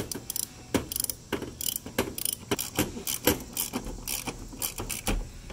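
Hand socket ratchet clicking in quick, uneven runs as it is worked back and forth, tightening the set screw inside a pool ladder's deck anchor.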